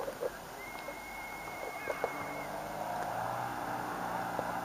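A distant rally car's engine running hard as it drifts on snow, growing louder about halfway through. A few short knocks and a steady high tone lasting about two seconds are also heard near the start.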